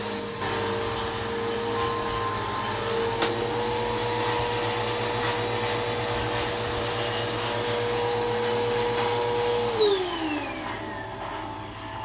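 Bissell PowerForce Helix upright vacuum cleaner running on a rug with a steady high whine, with a single sharp click about three seconds in. About ten seconds in, the motor's whine falls in pitch as it winds down.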